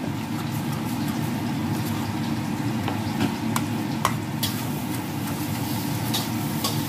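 Spoon stirring thick glutinous rice flour batter in a stainless steel bowl, with light clicks of the spoon against the bowl every second or so. Over it runs a steady low hum.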